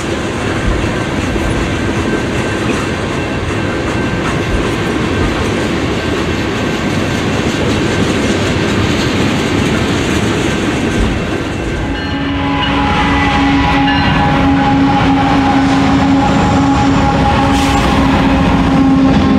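Model coal train rolling past, a steady rumble and clatter of the hopper cars' wheels on the track. About twelve seconds in, steady droning tones from the diesel locomotives come in over it and hold, a little louder.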